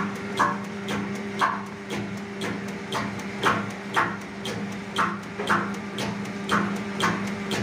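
Hydraulic servo linear actuator system running: a steady hum with short, sharp bursts of noise about twice a second as the actuator is cycled.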